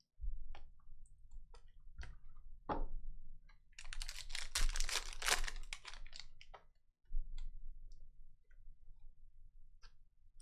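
Foil trading-card pack crinkling and tearing open for a few seconds in the middle, with scattered small clicks and taps of cards being handled before and after, over a faint low hum.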